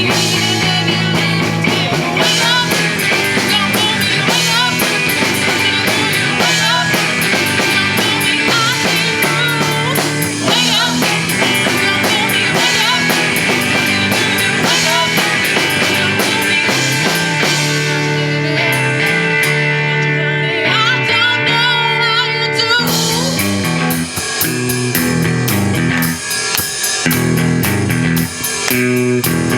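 Amateur rock band playing live through a passage with no vocals: a drum kit with cymbals over guitar and steady stepping bass notes. The cymbal wash drops out for a few seconds about two-thirds of the way through, then comes back.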